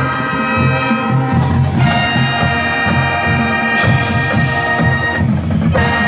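Marching band playing: the brass section holds loud chords over a moving low bass part, with the chord changing a few times.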